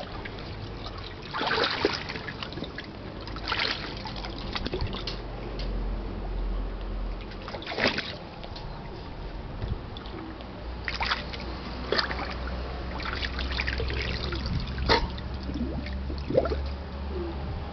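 Pool water splashing and sloshing as a dog plays in it with a Kong toy, in irregular splashes every second or few.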